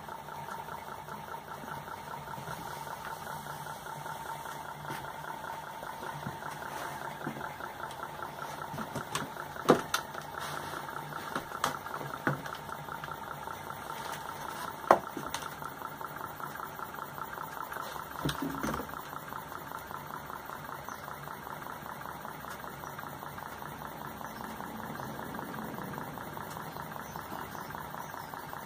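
Bernhardt hot air (Stirling-type) model engine running steadily on its first run, its crank and flywheels making a fast, even mechanical patter. A few sharp knocks come through the middle of the stretch.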